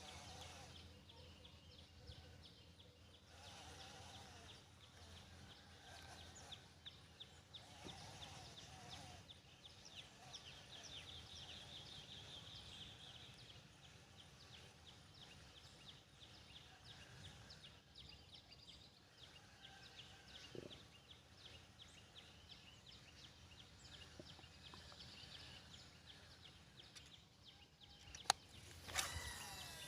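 Faint outdoor morning ambience: birds calling now and then over a steady run of quick, high ticking. Near the end comes a short, loud clatter.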